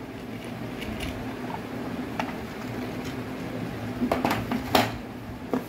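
Unboxing handling noises: red plastic strapping being pulled off a cardboard microscope box, with a short click about two seconds in and a few sharp rustles and knocks about four to five seconds in, over a steady low hum.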